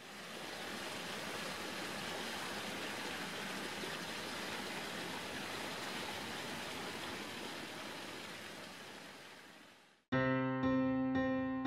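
A steady, even rushing noise like running water fades in at the start and fades out about ten seconds in, after which piano music begins.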